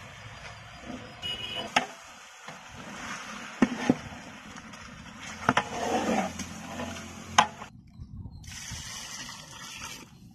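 Long-handled metal spatula stirring chicken and tomatoes in a large metal cooking pot, scraping and knocking sharply against the pot several times. After a brief break near the end, a steady hiss of liquid, as water is poured into the pot.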